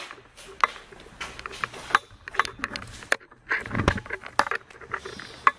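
Handling noise from a handheld camera being swung around: scattered light clicks and knocks, with one duller thump a little before four seconds in.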